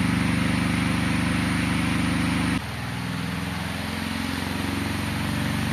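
Cadence electric fan with a coloured propeller running: a steady motor hum under a rush of air. About two and a half seconds in it drops to a slightly lower level and runs on steadily.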